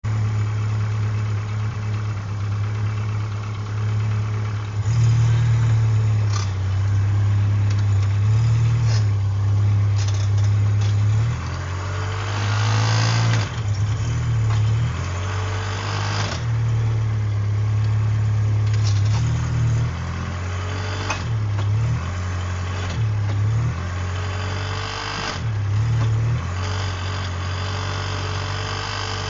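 Automatic car's engine running, a steady low drone that steps up and down in pitch every few seconds, with a few clicks. This is the noise the owner hears when pulling away from a stop, such as at a traffic light.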